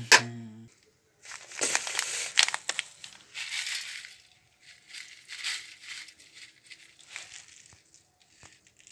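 Plastic tea packets crinkling and rustling in uneven bursts as tea leaves are shaken out of them into a pan. A single sharp click sounds as it begins.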